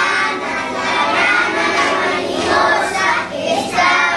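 A group of young children chanting a rhyme together in Spanish, many voices at once with no pause.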